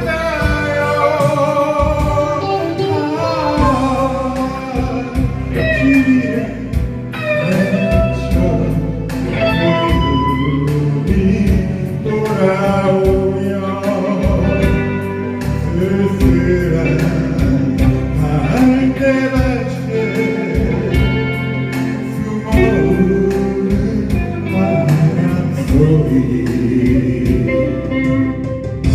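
A male singer singing a Korean song over guitar accompaniment with a steady beat.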